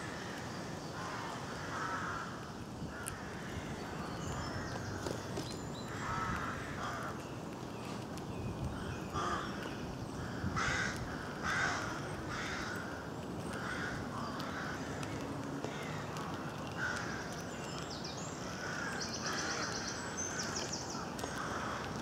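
Wild birds calling in woodland, with short calls repeated throughout and a fast, high ticking trill near the end.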